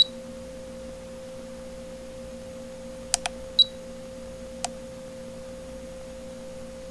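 A Klein digital level sounds a steady electronic tone. Its buttons give a few sharp clicks, and two short high beeps come at the start and about three and a half seconds in.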